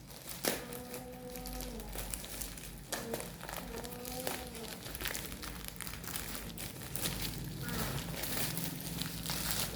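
Parcel packaging crinkling and rustling as it is handled and opened, with scattered small clicks.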